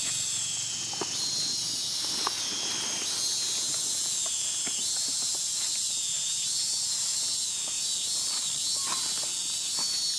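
Steady high-pitched chorus of forest insects with a slowly wavering pitch, over faint scattered crackles of dry leaves underfoot.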